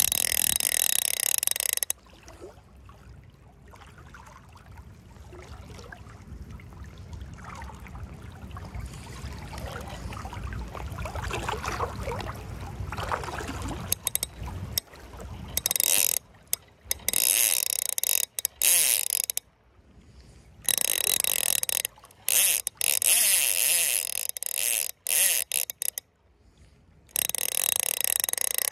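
Fly reel's click-and-pawl drag buzzing as line is pulled off it. There is one burst at the start, then, after a stretch of low rumble, many short runs that start and stop abruptly.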